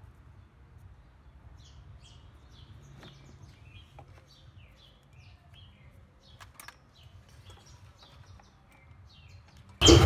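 Faint chirping of small birds, many short calls scattered throughout, with a few light clicks from the plastic vacuum cleaner housing being handled.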